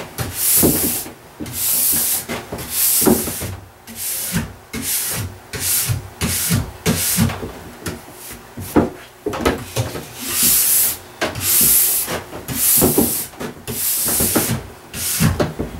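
Stainless steel ski brush stroked tip to tail along a freshly scraped, waxed ski base: a run of scratchy strokes, about one a second, with short pauses between. The brushing clears leftover wax out of the base structure.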